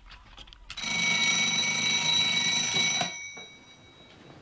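Bedside alarm clock ringing its bell loudly for about two seconds, then cut off, the bell tones dying away over about a second.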